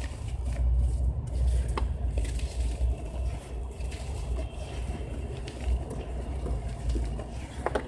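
Hands squeezing and crumbling lumps of dry grey sand in a plastic tub: gritty crunching and crackling, with a few sharper cracks as lumps break, over a low rumble.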